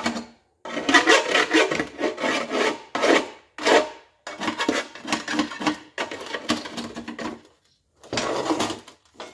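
Hand abrasive scrubbed quickly back and forth on the steel Moroso oil pan, in four bursts of rapid strokes with short pauses between them. This is the pan being scuffed clean of its plating before welding.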